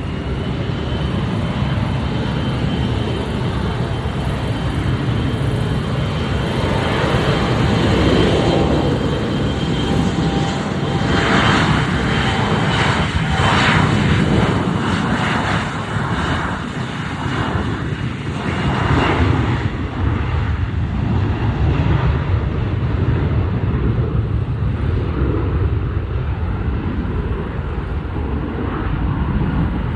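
Embraer E175 jet departing, its two GE CF34-8E turbofans at takeoff power: a loud, steady rumble with a high fan whine held at one pitch.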